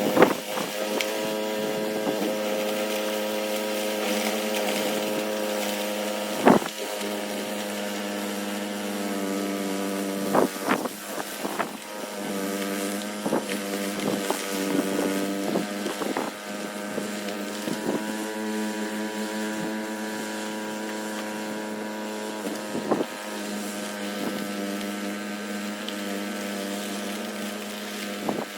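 Engine running steadily at a constant speed, with wind noise on the microphone and a few sharp knocks.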